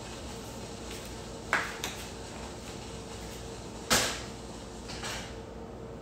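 Kitchenware handled at a stovetop: a few sharp knocks and clinks, the loudest about four seconds in, over a faint steady hum.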